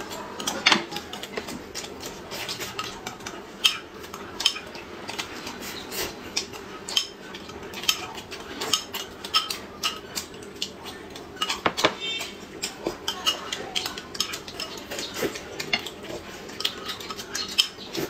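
A spoon clinking and scraping against a glass bowl many times in quick, irregular clicks, mixed with close eating sounds of sipping and chewing.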